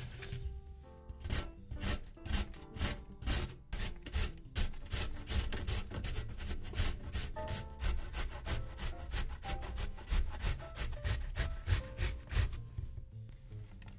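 Zucchini being grated on a stainless steel box grater: a rhythmic rasping stroke about three times a second, stopping shortly before the end. Soft background music plays underneath.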